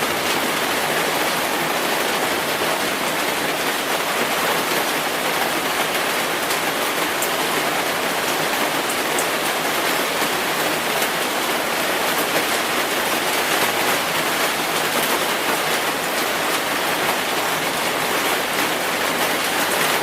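Simulated rainfall: a steady, even hiss of rain with fine drop ticks scattered through it.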